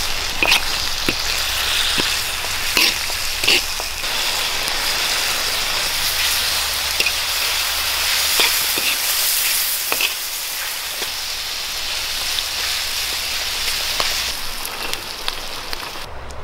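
Meat and vegetables sizzling as they are stir-fried in a wok, with a metal spatula scraping and clicking against the pan every second or so. The sizzle drops away near the end.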